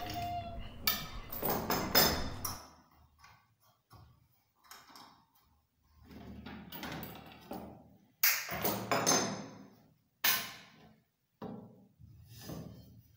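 The tail of a rooster's crow fades just after the start. Then come irregular knocks and clatters in several clusters, from metal pieces being handled and set down on a wooden board.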